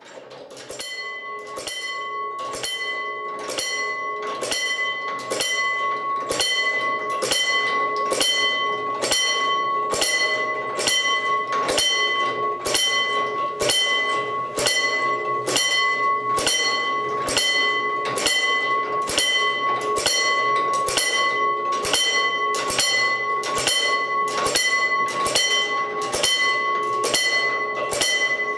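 Südbahnwerk warning bell on a hand-cranked 1880s level-crossing barrier, struck by a bar driven from the crank's cogwheel at about three strokes every two seconds, each stroke ringing on into the next. It rings as the warning that the barrier is being lowered.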